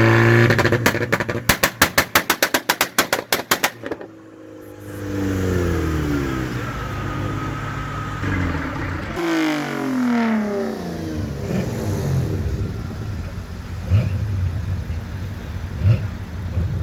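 Volkswagen engine held at high revs, then a rapid string of sharp exhaust pops, about six or seven a second for roughly three seconds. After that, engine notes fall in pitch twice as it revs down and pulls away.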